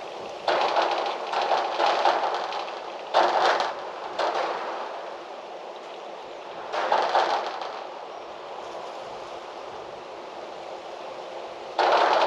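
Wind blowing in gusts: a steady rush broken by sudden louder gusts about five times, each fading over a second or two.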